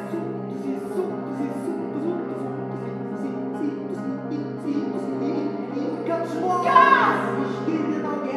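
Contemporary music for piano and live electronics: grand piano playing over held electronic tones, with a brief louder swell of falling, sliding pitches about seven seconds in.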